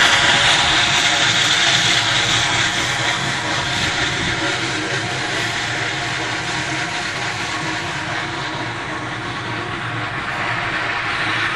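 Moldovanka stone-cutting machine running, its saw cutting into stone: a steady mechanical drone with a high hiss. It eases off over most of the stretch and picks up a little near the end.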